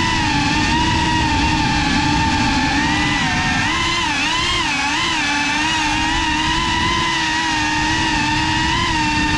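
GEPRC CineLog35 FPV drone's brushless motors and ducted propellers, a steady whine whose pitch wavers up and down with throttle changes, over a rough low rumble.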